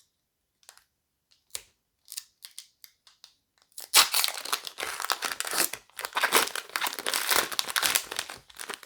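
A Disney Lorcana booster pack wrapper being torn open and crinkled: a few faint crackles, then from about four seconds in a dense run of crinkling and tearing.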